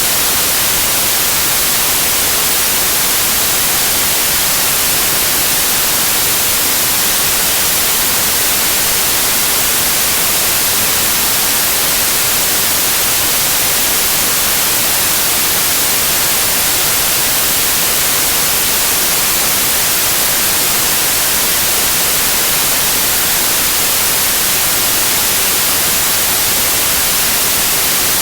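White noise in the style of TV static: a steady, even hiss, bright and high-heavy, that does not change.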